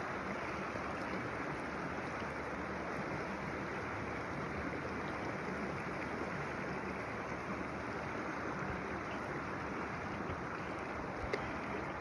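Creek water rushing steadily, with one short click near the end.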